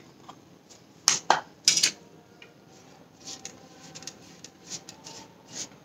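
Steel spoon clinking and scraping against a stainless steel plate and a small tin while scooping and mixing damp potato starch: a few sharp clinks a little over a second in, then softer, irregular scraping taps.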